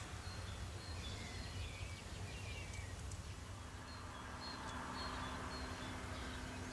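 Outdoor ambience: a steady low rumble with scattered short, high chirps from small birds, and a faint steady hum joining about halfway through.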